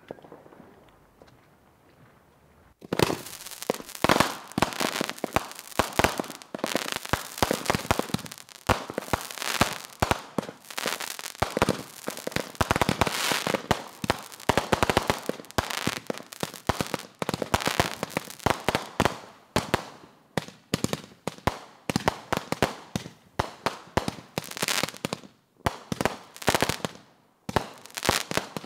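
Consumer fireworks going off in rapid succession: a dense string of sharp bangs and crackling, starting about three seconds in.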